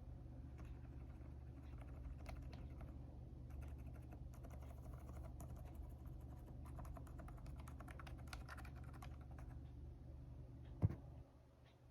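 Typing on a custom keyboard fitted with silent switches: soft keystrokes that thicken into a fast run of typing midway, with one sharper click near the end. A steady low hum runs underneath.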